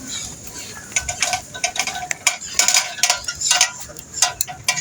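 Irregular, quick clicks and clatters of things being handled and knocked together, several a second, starting about a second in.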